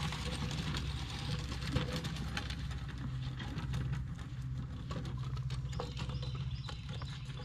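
A vehicle engine idling with a steady low hum, under scattered light clicks and rattles.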